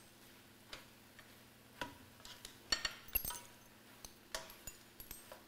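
Kitchen utensils clinking and tapping lightly, about eight separate clicks scattered through, the loudest a little under halfway through, over a faint steady hum.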